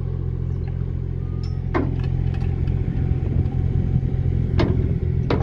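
Mini excavator's engine running steadily while it handles railroad ties with tongs on a chain, with three sharp knocks over the engine sound, the first about two seconds in and the other two near the end.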